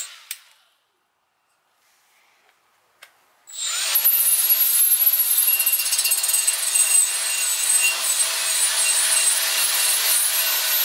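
Near silence for the first few seconds, then a small cordless rotary tool starts up and runs at low speed about a third of the way in. Its 3M Roloc bristle disc rubs gasket residue off an aluminium engine case with a steady whine and scrubbing noise.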